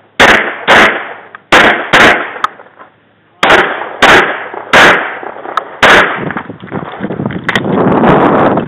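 Glock 24 pistol in .40 S&W fired rapidly, about eight shots mostly in quick pairs, each followed by a short echo. After about six seconds the shooting stops and a steady rough noise rises toward the end.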